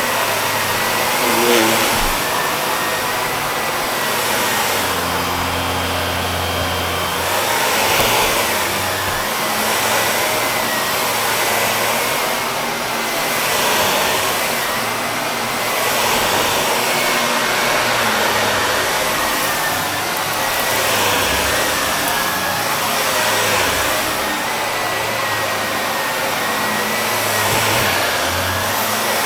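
Shark Navigator Lift-Away upright vacuum running steadily with a thin, slightly wavering high whine, vacuuming the filter of another Shark vacuum. Its sound swells and dips every couple of seconds as the nozzle moves over the filter.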